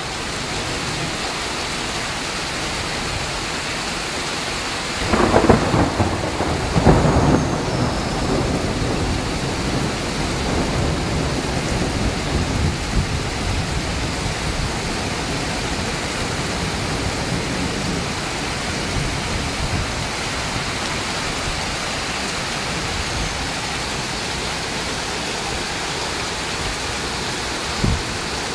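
Heavy rain falling steadily during a thunderstorm, with a loud burst of thunder about five seconds in that rumbles on for a few seconds. A brief low thump near the end.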